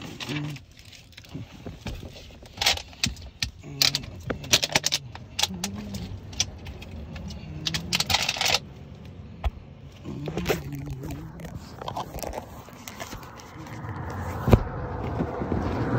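Handling noise from a moving handheld phone: a run of quick light jingling clicks and rubbing, with faint voices in the background. Near the end a rushing noise builds, with one sharp knock.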